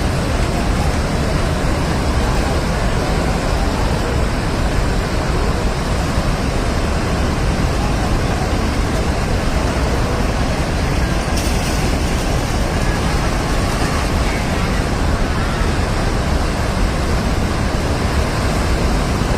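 Flash-flood water rushing down the Bhote Koshi river, a steady, heavy rush of fast water with no let-up.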